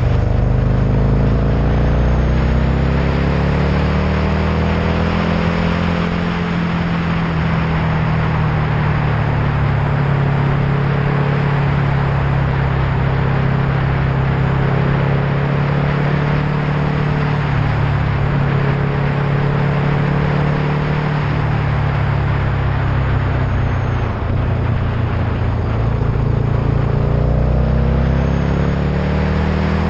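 Vehicle engine running at a steady cruising note under a heavy rush of wind and road noise. About three-quarters of the way through the note dips, then climbs again as it accelerates.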